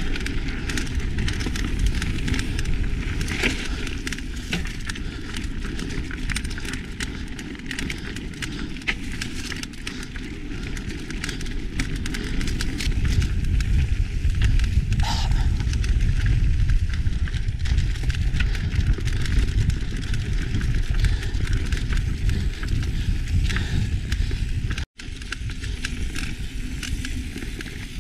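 Mountain bike ridden fast down dirt singletrack, heard from a chest-mounted action camera: wind buffeting the microphone, tyres rolling over dirt and dry leaves, and rattling clicks from the bike over bumps. It grows louder about halfway through and drops out for an instant near the end.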